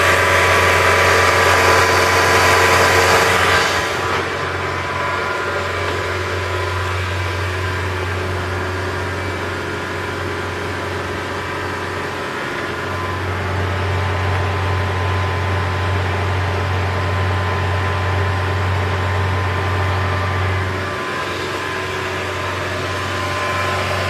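Saab engine running, louder for the first few seconds with a high hiss and whine that drops away about four seconds in, then running steadily with a low hum. The owner suspects a failing turbocharger.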